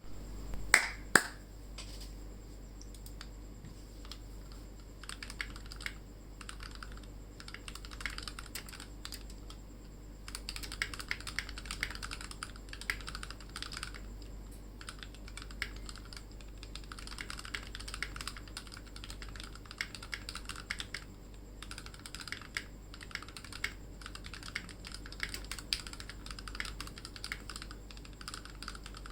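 Typing on a Drop Alt mechanical keyboard with Gateron Yellow linear switches: runs of rapid keystrokes broken by short pauses. Two sharper, louder clacks come about a second in.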